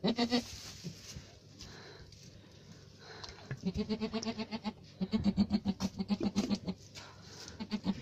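Alpine doe making low, rapid stuttering bleats to her newborn kid just after kidding: one short call at the start, then from about three and a half seconds in, runs of quick pulsed calls at about seven a second.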